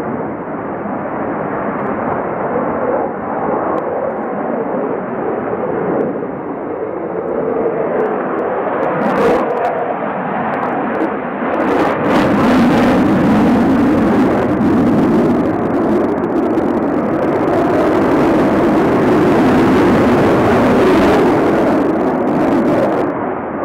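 Jet noise from a Sukhoi Su-35 fighter's two turbofan engines in flight overhead: a steady, loud rushing noise that grows louder about halfway through.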